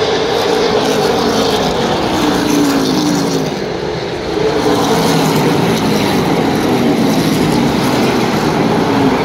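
Super late model stock cars' V8 race engines running around a short oval track, the pitch of the engines dropping as groups of cars pass by and pull away, twice.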